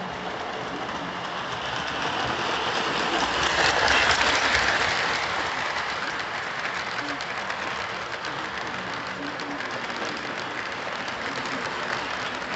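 Lionel O-scale freight cars rolling past on FasTrack: metal wheels running on the rails with a fast stream of small clicks, growing loudest about four seconds in as the cars pass closest.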